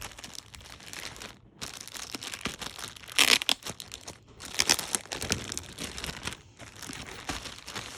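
Wrapping around a book being crinkled and torn open by hand, an almost unbroken rustle with two louder bursts about three seconds in and just under five seconds in.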